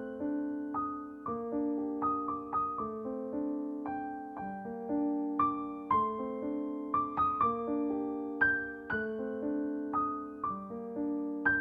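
Background music: a gentle piano melody, single notes struck about twice a second and left to ring over sustained lower notes.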